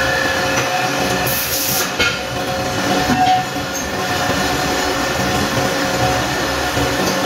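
Manual metal lathe running steadily, with a brief high hiss a little over a second in.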